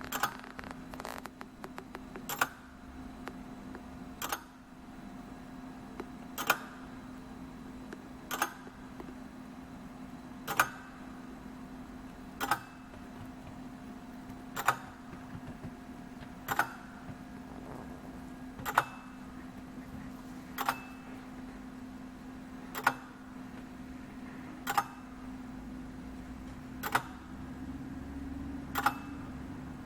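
Oversized Swiss lever escapement display model ticking slowly, one sharp tick about every two seconds as the pallet releases and locks the escape wheel with each swing of the balance. A few quicker clicks come in the first second or so, and a steady low hum runs underneath.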